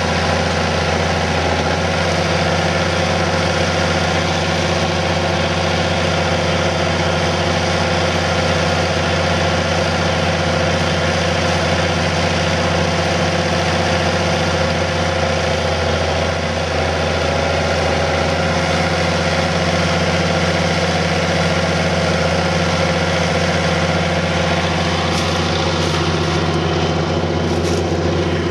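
Farm tractor engine running under load while pulling a disc tillage implement through the field, a steady engine note that holds one pitch throughout.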